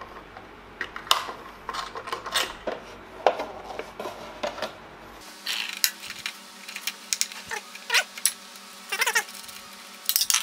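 Irregular metallic clicks and clinks as the Diablo blade is taken off a Triton sliding compound mitre saw, hands working the arbor hardware and blade guard; a few clinks ring briefly.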